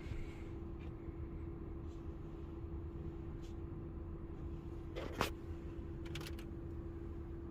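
Steady low hum with a constant tone and low rumble, broken by one sharp click about five seconds in and a few lighter clicks just after.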